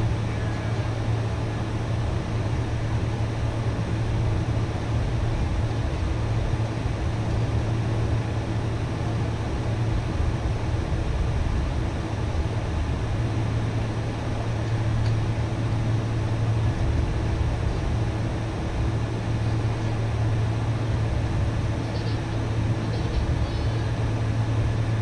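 Boeing 747's jet engines at low taxi thrust heard inside the cabin: a steady rushing noise over a constant low drone as the airliner taxis slowly.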